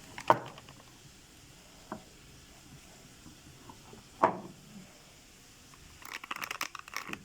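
A bottle being handled: a few light knocks, then a quick run of clicks near the end.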